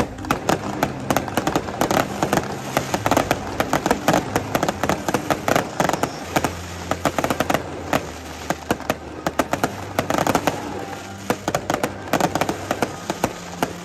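Aerial fireworks going off in a dense barrage of sharp bangs and crackles.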